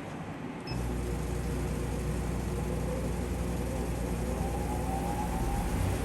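A machine switches on about a second in and runs with a steady low hum and hiss.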